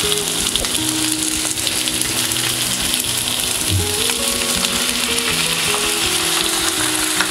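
Onions and bell peppers sizzling steadily in hot oil in a nonstick pan, with soy sauce poured in over them partway through.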